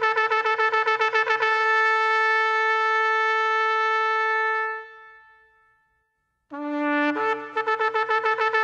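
Shofar (ram's horn) being blown. It starts with rapid staccato notes, about five a second, then holds one long steady note that fades out near the middle. After a short silence a new blast starts on a low note, jumps up to the higher one and breaks into rapid staccato notes again.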